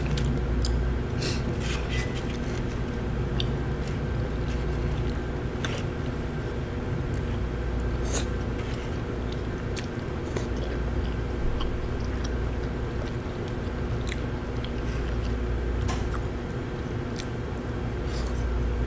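A person eating with chopsticks from a small bowl: chewing, with scattered sharp clicks of chopsticks against the bowl, over a steady hum in the room.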